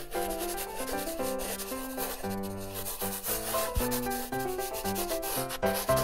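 Pencil writing on paper in close-up, a steady scratching, over light background music playing a stepping melody.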